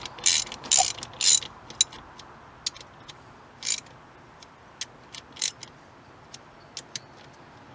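Hand ratchet clicking in short bursts, several quick strokes in the first second and a half, then sparser single ones: bolts being run in on a zinc-anode cover of an outboard engine.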